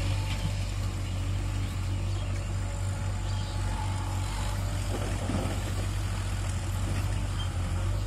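JCB 3DX backhoe loader's diesel engine running steadily while it works its loader arm. About five seconds in comes a brief rushing noise as the front bucket tips its load of mud into the tractor trolley.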